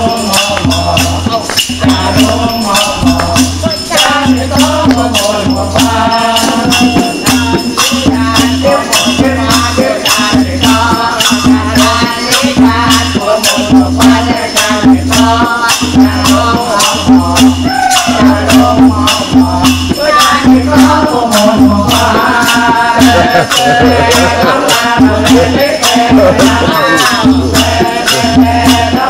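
A group of villagers singing together to a hand drum, with a steady rhythmic beat under the voices.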